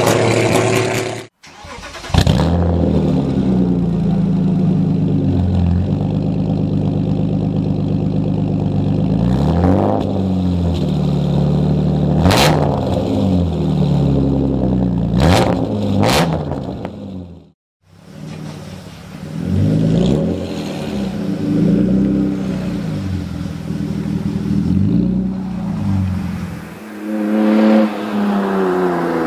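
A 1999 BMW M3's straight-six engine through straight-piped exhaust, revved again and again, the pitch climbing and falling with each blip. Three sharp cracks come in the middle. Near the end the pitch rises steadily as the car accelerates. The first second is another E36 revving, cut off abruptly.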